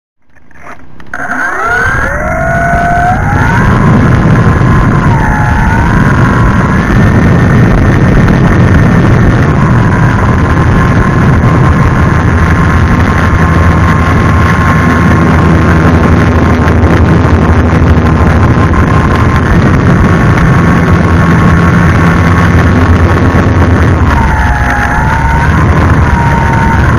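Electric motor and propeller of a 1.1 m Parkzone Spitfire model plane, heard from a camera in its cockpit while it taxis on grass. The motor whine climbs steeply in pitch as it spools up in the first couple of seconds, then runs loud and steady over a rough rumble. Its pitch dips briefly twice, a few seconds in and again near the end.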